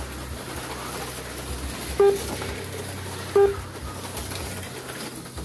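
Two short electronic beeps on one mid-pitched tone, about two and three and a half seconds in, over a steady low hum: a slot-car lap counter sounding as cars cross the line.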